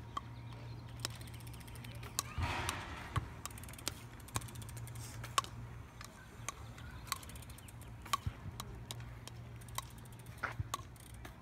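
Bike polo mallet tapping a plastic ball on a hard court: sharp knocks at irregular intervals, one or two a second, over a steady low hum. A short scraping rush comes about two and a half seconds in.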